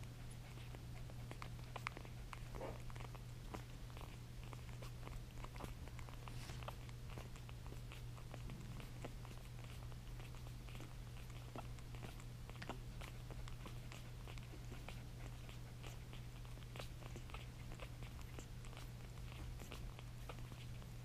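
Havanese puppies nursing from their mother: a steady run of small wet suckling clicks and smacks, several a second, over a constant low hum.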